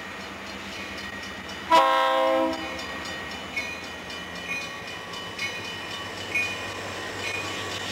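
Diesel freight locomotive's air horn sounding one short chord blast about two seconds in, then a bell ringing about once a second, over the steady rumble of the approaching train.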